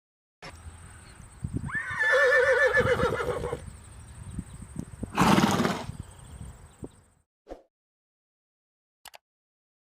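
Horse whinnying: a loud, quavering neigh starting a little under two seconds in and lasting about two seconds, then a second, shorter loud call around five seconds in. The sound stops about seven seconds in.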